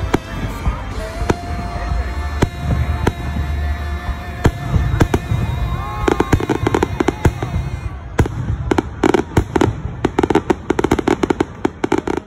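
Fireworks bursting overhead: separate bangs at first, then from about six seconds in a dense, rapid crackling as many shells and crackle stars go off together.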